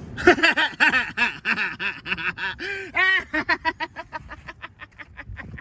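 A person laughing: a long run of short bursts that come faster and fainter toward the end.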